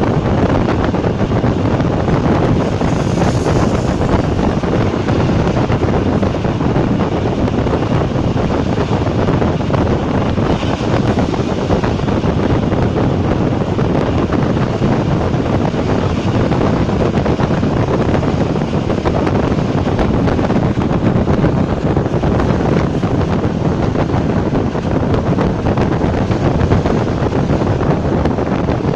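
Class 460 electric multiple unit under way: a loud, steady running noise of wheels on rail and rushing air, unchanging throughout.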